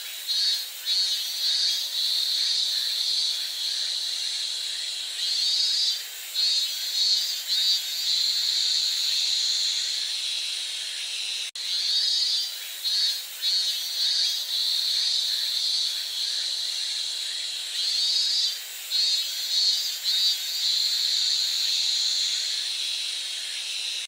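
Cicadas singing loudly: a steady high-pitched buzz broken by stretches of rapid pulsing, the same phrase coming round again about every twelve seconds.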